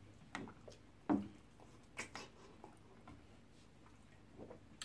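Eating sounds from people eating starch and egusi soup by hand: scattered short, wet smacks and clicks of lips, mouths and fingers. The loudest is about a second in.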